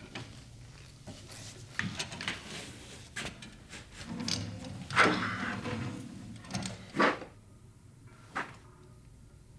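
A run of sharp knocks and clatters, about seven in all, the loudest about five seconds in.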